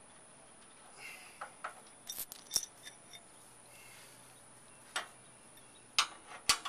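Scattered sharp metallic clinks and taps of hand tools on the steel side-step bracket and frame rail while its bolts are being removed, with the loudest clinks near the end.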